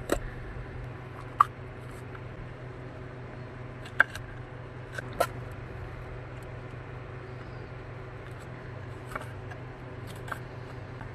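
A chef's knife knocking on a wooden cutting board about six times at irregular spacing while a green bell pepper is cut and pulled apart, the sharpest knocks about a second and a half in and about four seconds in. A steady low hum runs underneath.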